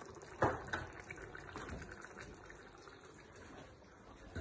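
Cooking at a pot: a sharp clink about half a second in, then a few lighter clinks and knocks over a soft liquid sound from the pot.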